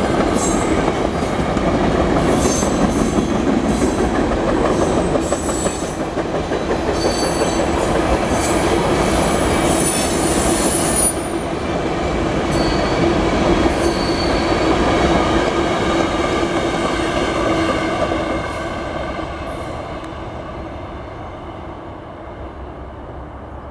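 Freight train of hopper cars rolling past, steel wheels rumbling on the rails with high-pitched wheel squeals coming and going. The sound fades over the last few seconds as the train moves away.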